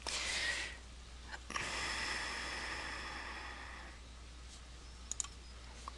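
Breathing close to the microphone: a short breath, then a longer, fading one about a second and a half later. A couple of faint clicks come near the end.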